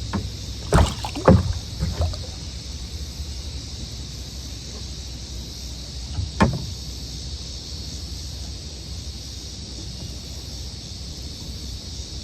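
A few sharp knocks and bumps on a kayak in the first two seconds, and one more about six seconds in, over a steady low rumble.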